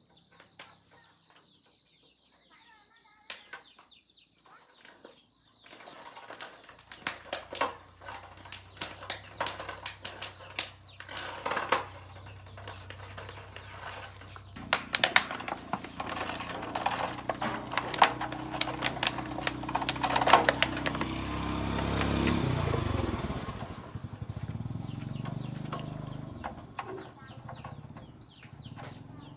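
Sharp metallic clicks and knocks of hand tools working on a motorcycle's rear brake, starting after a quiet few seconds with faint bird chirps. A low hum runs underneath, swelling about two-thirds of the way through and then dropping away.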